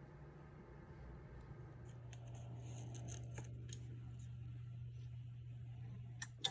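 Steady low hum of a Penguin power filter's motor running, with a faint rushing sound that dies away about halfway and a few light clicks. A sharp click comes right at the end, where the hum cuts off.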